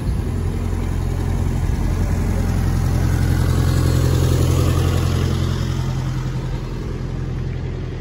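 Red London double-decker bus engine running close by: a steady low engine hum that builds to its loudest about halfway through, then fades over the last couple of seconds.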